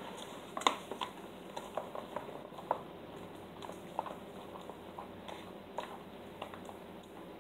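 Slime ingredients being stirred in a container: irregular light clicks and taps of the stirring utensil against the container, about one or two a second, the sharpest near the start.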